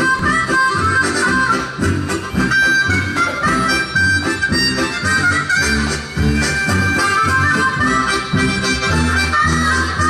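Harmonica-led music with a rhythmic bass line underneath.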